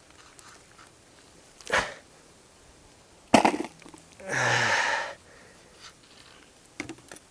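A sharp knock, then a louder hard knock with a short ring, then a loud breathy burst of the voice lasting under a second, like a cough or hard exhale. A few lighter clicks follow near the end.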